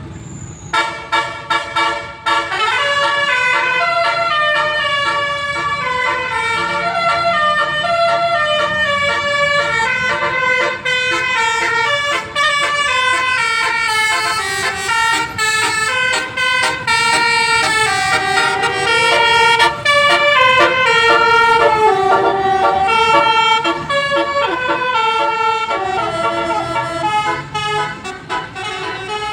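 Tour bus's Basuri telolet horn, a multi-trumpet air horn, playing a long melody of stepped notes with a few short pitch slides.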